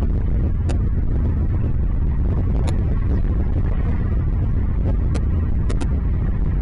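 Steady low rumble with a few brief high-pitched ticks scattered through it.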